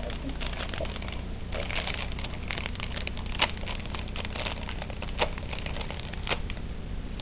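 Clear plastic packaging crinkling and rustling in the hands as small doll accessories are unwrapped, with a few sharper clicks.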